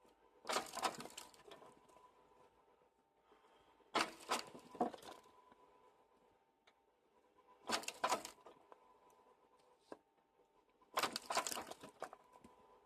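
Homemade firewood processor chopping logs: four cracking, crunching cuts about four seconds apart, each lasting about a second, over a faint steady machine hum.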